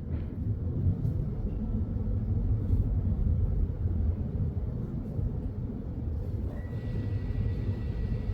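Low, steady rumble of outdoor background noise. A faint, steady high tone comes in about six and a half seconds in.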